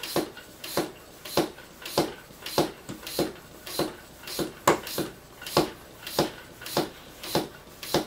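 Floor pump worked in a steady rhythm, nearly two strokes a second, each stroke a short rush of air, inflating a tubeless 29er mountain bike tire to seat its bead on the rim; the gauge climbs from 35 to 40.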